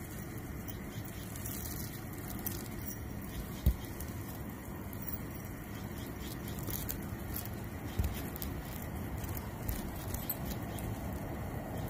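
Footsteps of work boots on asphalt roof shingles over a steady low outdoor rumble, with one sharp thump a few seconds in.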